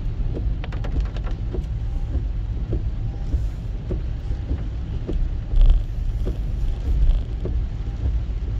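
Steady low rumble of a car driving on a wet road in rain, heard from inside the cabin, with the windscreen wipers running. Small ticks come every half second or so, and there are two louder knocks about two-thirds of the way through.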